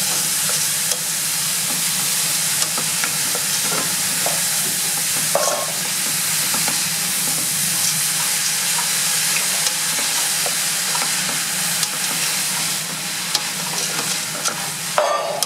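Frozen minced beef frying with onions in a stainless steel stockpot: a steady sizzle as it gives off steam, while a wooden spoon stirs it, scraping and tapping against the pot now and then.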